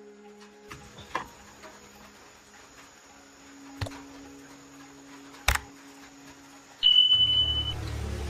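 A few scattered sharp knocks, then a single high electronic beep lasting under a second near the end, as a loud, low, steady machine sound starts up.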